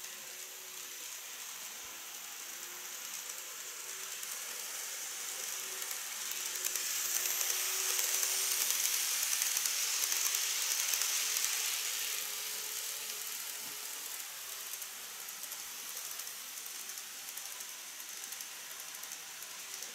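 KATO N-scale E6 series Komachi model shinkansen running along its track: a steady mechanical rattle of wheels and drive with a faint hum. It grows louder as the train passes close, from about seven to twelve seconds in, then fades as it moves away.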